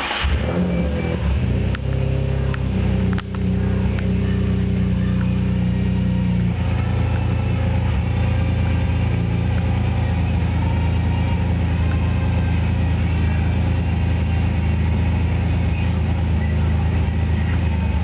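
Car engine starting up and then idling, heard from inside the cabin. The idle note shifts about six seconds in, then holds steady.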